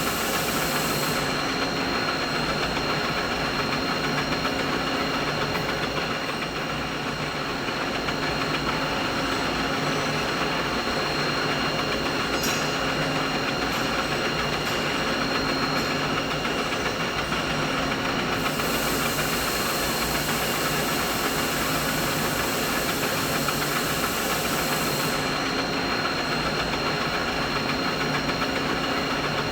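Steady machinery drone with a few constant whining tones running through it. A high hiss in the mix drops out about a second in, comes back for several seconds after the middle, then drops out again.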